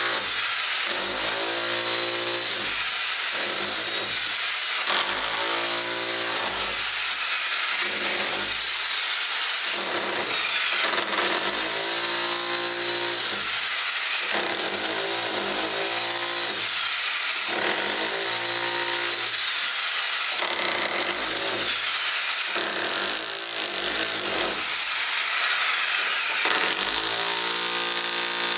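Electric rotary hammer with a chisel bit hammering into a concrete wall, running steadily, its low buzz swelling and fading every second or two as it bites and is eased off.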